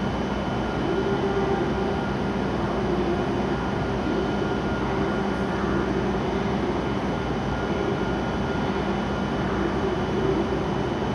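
E7/W7-series Shinkansen trainsets standing at the platform, their onboard equipment humming steadily with several constant tones over an even rush of noise.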